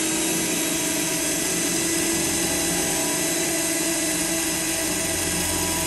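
Cordless drill running at a steady speed, drilling out a pilot hole in a car's metal trunk lid with a bigger bit. The bit makes little headway, and the owner thinks he may need a different kind of drill.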